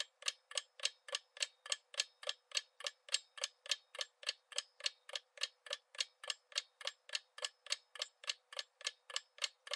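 Clock-ticking sound effect of a quiz countdown timer, counting off the time to answer: a steady run of short, sharp ticks, about three to four a second.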